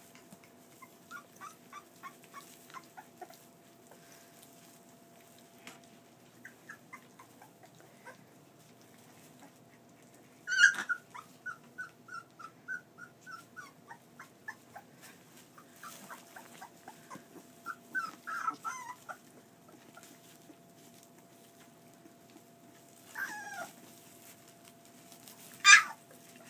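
A litter of boxer puppies whimpering, yipping and squeaking in short high cries, with a few sharp louder yelps: one about ten seconds in, a run of squeaks just after it, and the loudest near the end.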